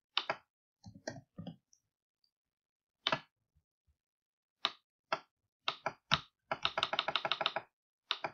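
Computer keyboard and mouse clicking: scattered keystrokes and clicks in ones and twos, then a quick run of about a dozen clicks near the end.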